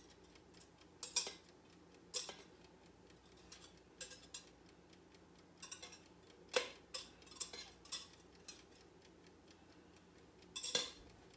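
Kitchen scissors snipping raw chicken into a small glass bowl: irregular sharp snips and clicks, a second or two apart.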